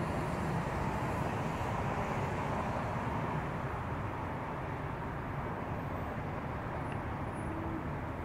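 Steady road traffic noise from cars driving along a multi-lane highway, a mix of tyre and engine noise with no single vehicle standing out, easing slightly about halfway through.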